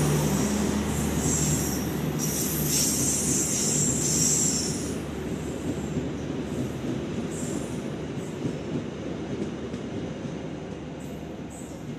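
Passenger train coaches running through a station at speed: a steady rumble of wheels on rail, with high-pitched wheel squeal over the first few seconds. The sound fades gradually as the rear of the train moves away.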